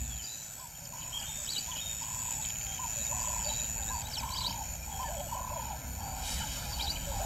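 Wild animal calls: a run of short arching calls repeated about once or twice a second, with a few faint high bird chirps over a steady outdoor hiss.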